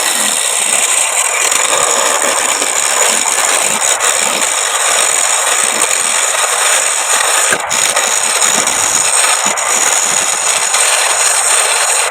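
Homemade wood lathe running while a spinning wooden plate blank is worked against a tool: a steady, loud rasping noise with a constant high whine and a few light ticks.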